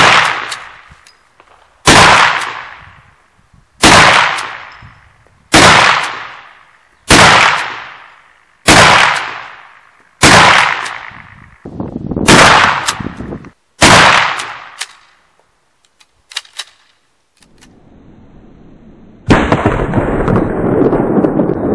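Pedersoli Lightning slide-action rifle firing nine rapid shots of black-powder .44-40 ammunition, about one every one and a half to two seconds, each a sharp crack with a long fading tail. A few faint clicks follow, and about nineteen seconds in a steady rushing noise starts.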